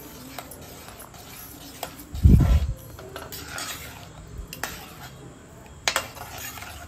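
Steel ladle stirring thin milky kheer in a steel pot: scattered light clinks and scrapes of metal against the pot's side. A dull low thump a little over two seconds in.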